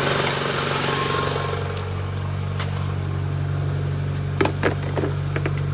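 1993 Mercury Capri's four-cylinder engine idling steadily, just brought back to life after a blown 80 amp fuse was replaced. A hiss fades out about a second and a half in, and a few sharp clicks come near the end.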